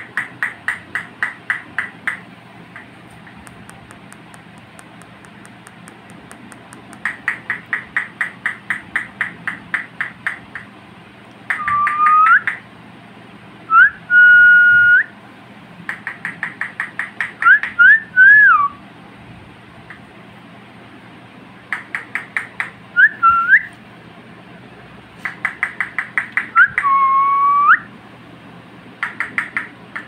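Rose-ringed parakeet calling: runs of rapid repeated chirps, about six a second, alternating with loud whistled notes that glide up and down or hold steady.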